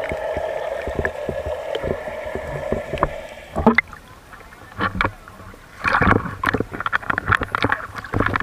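Sound through an action camera's waterproof housing: underwater at first, with a steady drone, then the camera breaks the surface about three and a half seconds in and water splashes and sloshes against it in several bursts.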